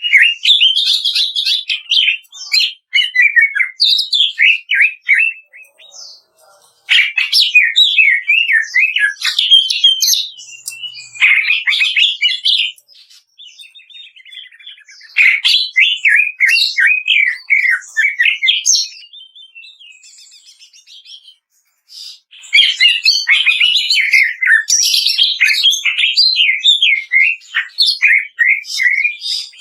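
Cucak ijo (green leafbird) singing in rapid crackling runs of varied chirps and whistles. The song comes in bursts a few seconds long with short pauses between them: the harsh 'kretekan' style used as master song by bird keepers.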